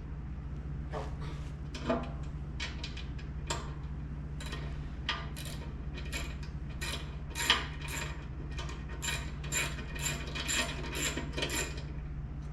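Hand ratchet wrench clicking as a bolt is backed off by hand: a few scattered clicks at first, then a steady run of about three clicks a second through the second half. A steady low hum runs underneath.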